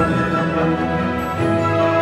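Trailer theme music with held chords that change about one and a half seconds in.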